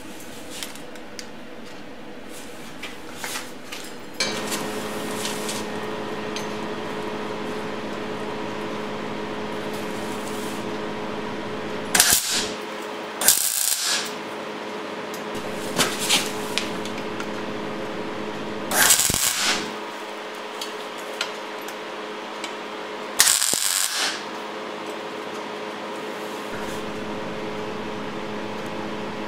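Light clanks of steel being handled, then a steady machine hum starts about four seconds in. Over the hum come four short bursts of MIG welding crackle, each half a second to a second long, as the steel frame is tack-welded.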